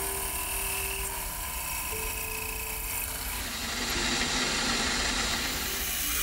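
Milling machine running as a cutter bores a hole through a brass plate, a steady noisy hiss of the spindle and cut. The sound shifts and gets a little louder about four seconds in.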